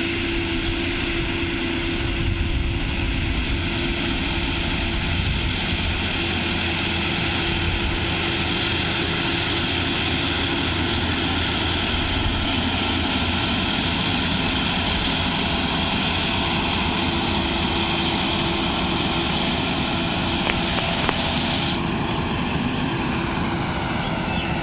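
Harvesting machine's engine running steadily under load, a continuous low rumble with a steady whine over it that shifts slightly near the end.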